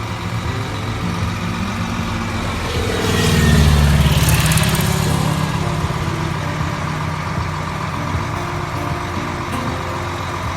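Heavy engine running steadily. About three seconds in, a louder sound swells up for a couple of seconds with a falling pitch, as if something passes close by, then the steady running carries on.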